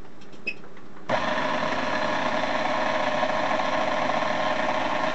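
A 1970s Sunbeam Mixmaster EM-3 mixer's small universal motor starts up by itself about a second in and runs steadily. The faulty off switch will not stay in the off position unless it is held.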